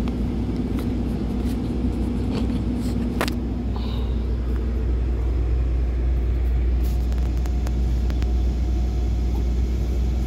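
SANY excavator's diesel engine running steadily with the hydraulics working, heard inside the operator's cab. A few sharp clicks and knocks, the loudest about three seconds in.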